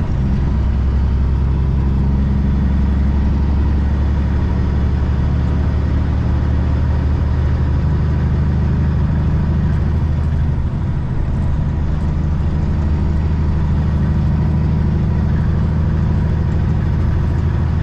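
Semi-truck's diesel engine running steadily under way, with road noise. The engine note dips briefly about ten seconds in, then steadies again.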